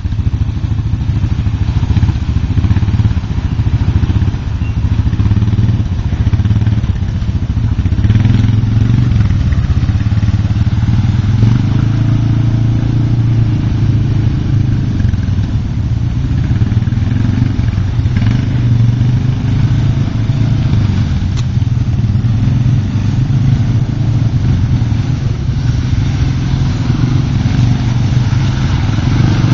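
ATV engines running, the revs rising and falling again and again as the quads are throttled through mud.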